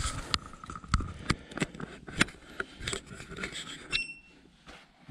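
Handling noise: a run of knocks and scrapes as the camera and cable are handled and the camera is set down on the floor, then one short electronic beep about four seconds in as the EcoFlow Delta Pro power station switches on.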